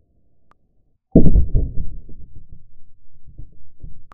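A 17 HMR rifle shot striking a ballistics gel block, heard as one sudden, muffled, deep bang about a second in, followed by a low rumble that fades unevenly.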